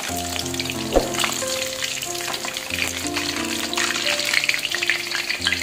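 Battered chicken pieces deep-frying in hot oil in a wok, a steady crackling sizzle, as the cooked pieces are lifted out. Background music with sustained notes plays along.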